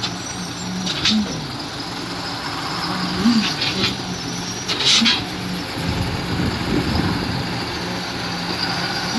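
Concrete pump running steadily, with a knock and a brief rise in engine pitch about every two seconds as it works through its pumping strokes.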